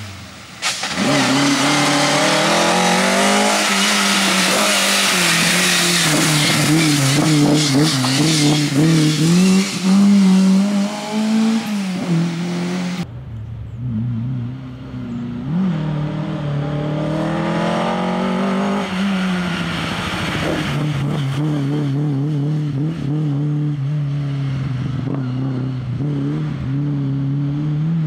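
Lada VFTS rally car's four-cylinder engine driven hard on a stage, its revs climbing and dropping again and again through gear changes and corners. About halfway through the sound cuts to a farther recording, where the engine keeps revving up and down as the car approaches.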